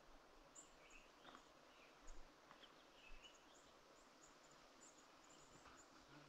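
Near silence: faint open-air meadow ambience, a soft hiss with scattered short high chirps and ticks.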